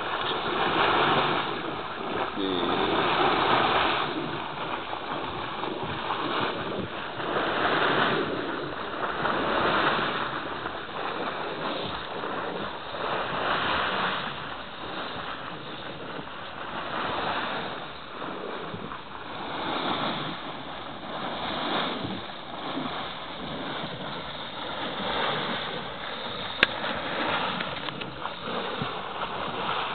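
Continuous rushing noise of condensate gushing out of a leaking oil pipeline, swelling and fading every couple of seconds. A single sharp click near the end.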